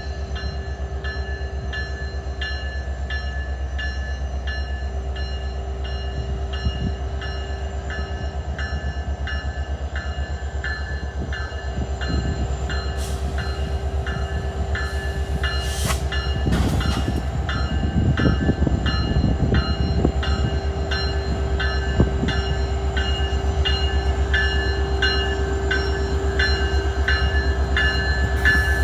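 Alaska Railroad diesel locomotive and train running as it pulls out of the station, with a low steady rumble. A ringing stroke repeats about twice a second, the locomotive bell sounding on departure. The train grows slightly louder over time, with a rougher stretch of rail noise about two-thirds of the way through.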